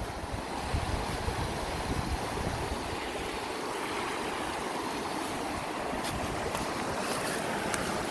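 Steady rush of flowing water, with wind rumbling on the microphone and a few faint clicks in the second half.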